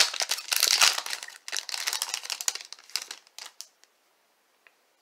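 Foil trading-card pack wrapper crinkling and crumpling in the hands, a dense run of crackles that stops about three and a half seconds in.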